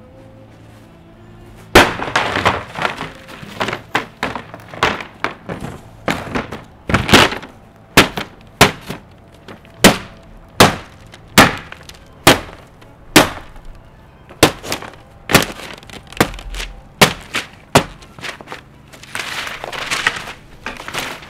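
A framed painting being smashed with repeated blows: a crash of breaking glass about two seconds in, then about twenty sharp cracks and knocks of the wooden frame and glass giving way, with a longer crunching stretch near the end.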